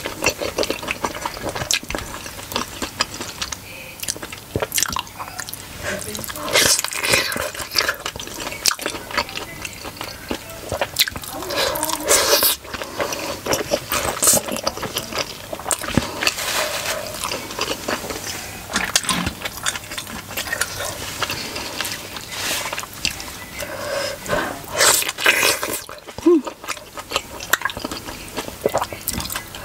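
Chewing and biting of steamed pork momo dumplings dipped in tomato achar, a run of irregular short wet mouth noises and bites.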